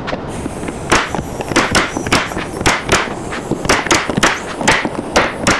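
Pneumatic staple gun firing staples into wood, about fifteen sharp shots in quick succession, roughly three a second, over a steady rushing noise.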